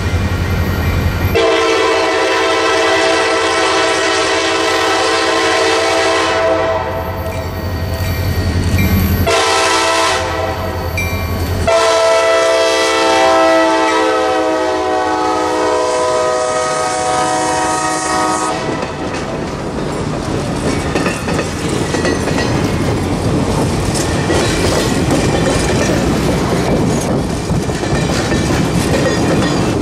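A diesel locomotive's air horn sounds two long chord blasts as the train nears, over the rumble of the diesel engines. The locomotives then pass close by and the passenger cars follow, their wheels clattering over the rail joints.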